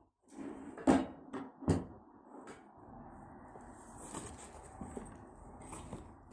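Heavy used door closers handled and set down on a table: two sharp clunks about a second apart near the start, with lighter knocks around them, then soft rustling and handling noise.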